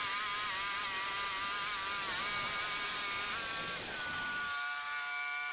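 Wood-Mizer LT15 band sawmill sawing through a hard maple log, its blade whining in a pitch that wavers under the load of the cut. Near the end the pitch steadies and the rough cutting noise falls away as the load comes off. The blade is getting dull.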